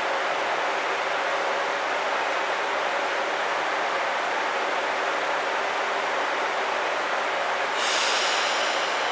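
KiHa 85 series diesel railcar idling at the platform, its diesel engines giving a steady rumbling hum. About eight seconds in a short high-pitched hiss cuts in for about a second.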